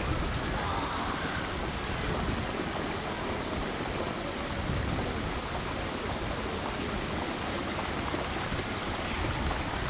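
Steady rushing noise of water.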